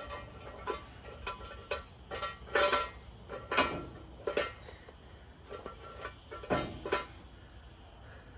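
Steel jack stands being handled and set under a truck: a string of irregular metal clanks and clinks with a short ringing after each, the loudest about two and a half, three and a half and six and a half seconds in.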